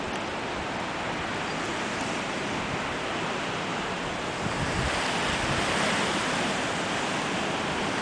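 Strong dust-storm wind blowing steadily, with low gusts buffeting the microphone; it grows a little louder and brighter about halfway through.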